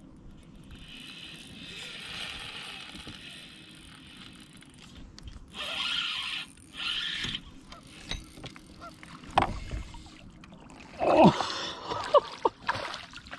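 Spinning reel being cranked, a steady whir from its gears and line as a hooked brown trout is brought to the boat; near the end, water splashing as the fish goes into the landing net, and short excited wordless shouts.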